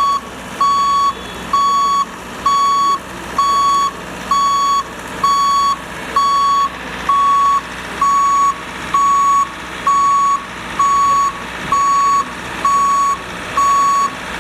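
Truck's back-up alarm beeping steadily while reversing, about one beep a second, over steady street and engine noise.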